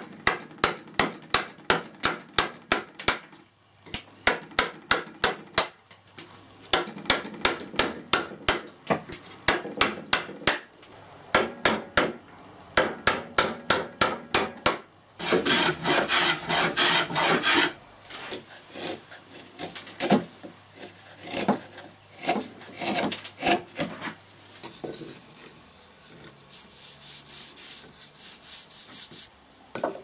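Coping saw cutting a curve through a pine board: quick, even back-and-forth strokes, about four a second, with short pauses. About halfway through, a steadier, denser rasping pass along a board, then slower, fainter strokes.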